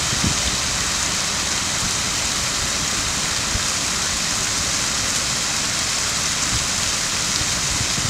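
Fountain water spilling over a stone rim and splashing below, a steady, even splashing without a break.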